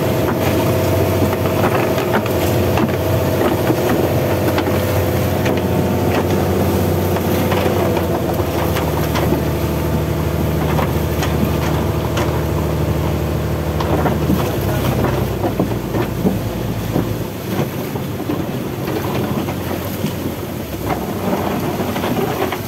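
Engine of a motorized outrigger fishing boat running steadily under way, with wind and rushing water over it; the engine note changes about two-thirds of the way through.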